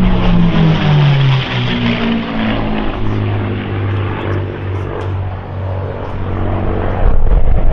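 Two P-51D Mustangs' Packard-built Merlin V-12 engines droning in a flyby, the pitch falling over the first second or so as they pass, then settling into a steady drone. A louder low rumble comes in near the end.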